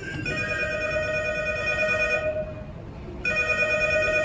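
A telephone ringing for a call: two rings, each about two seconds long, a second apart.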